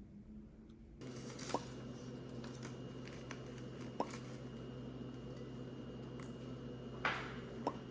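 Water drops plinking one at a time into water, three short rising plinks a couple of seconds apart, over a steady electrical hum that starts about a second in. A brief clatter comes about seven seconds in.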